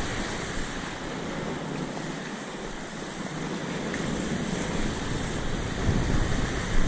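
Surf breaking and washing on a beach, with wind buffeting the microphone. The low wind rumble eases around the middle and picks up again near the end.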